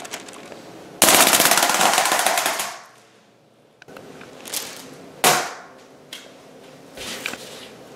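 Wind-up flying bird toy released: its wound mechanism beats the wings in a loud, rapid clatter for about two seconds, dying away as the winding runs down. A few short, sharp knocks follow later, the loudest about five seconds in.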